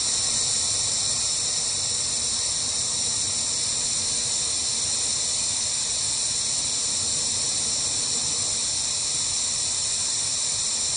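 Compressed-air blowgun blowing a steady, loud hiss of shop air over a small model control surface.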